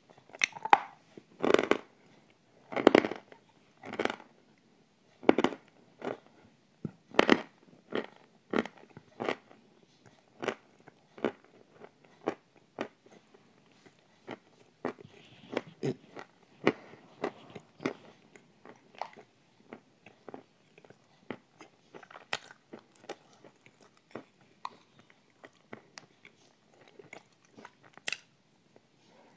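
Close-miked eating sounds of a thick creamy dessert taken by the spoonful: loud crunching bites in the first ten seconds or so, then quieter, rapid chewing clicks.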